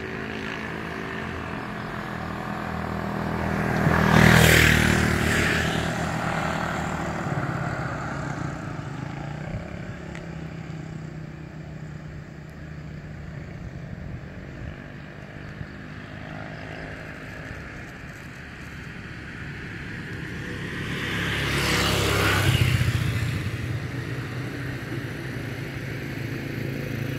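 Road traffic picked up by a smartphone's microphone: a steady low engine hum, with two vehicles passing by, one about four seconds in and another near twenty-two seconds, each building up and fading away.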